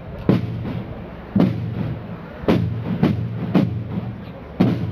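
Corps of Landsknecht marching drums beating a slow march, one heavy stroke about once a second with lighter strokes between.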